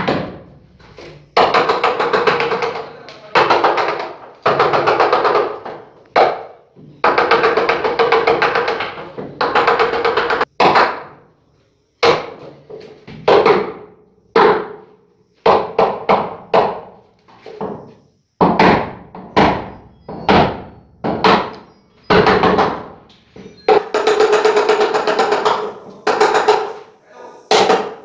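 A hammer striking a wood chisel as recesses are chopped into the edge of a wooden door: a run of sharp, irregular knocks, over background music.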